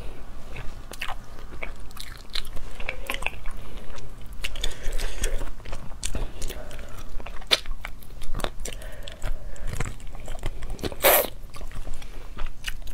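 Close-up eating sounds: biting, crunching and chewing on pieces of meat picked up by hand, a run of short wet clicks and smacks, with one louder burst about eleven seconds in.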